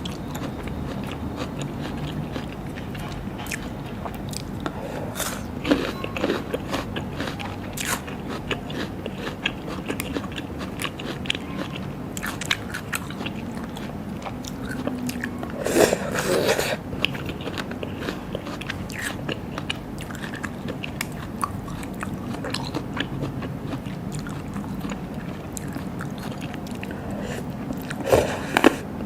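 Close-miked eating of a raw seafood meal: steady chewing and crunching with many small wet clicks. There are louder bursts of chewing about six seconds in, around the middle, and near the end.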